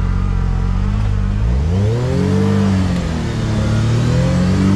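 Can-Am Maverick R side-by-side engine idling, then revved twice: its pitch rises and falls about a second and a half in, and climbs again near the end.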